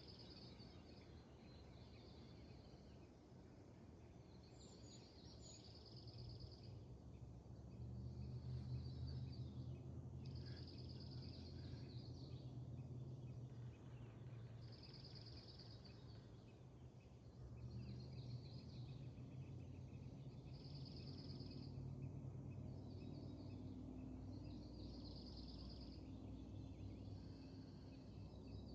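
A small songbird repeating a short, high trilled phrase every two to three seconds, heard faintly over a low steady rumble.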